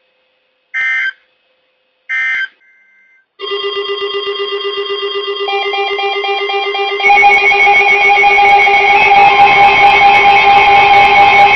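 Two short buzzy digital data bursts about a second and a half apart: NOAA Weather Radio's SAME end-of-message code closing the warning. Music follows from about three seconds in, starting as layered steady tones and turning full and loud about seven seconds in.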